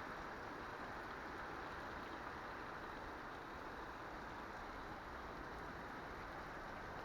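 Heavy rain falling steadily in a downpour, an even hiss with no thunder.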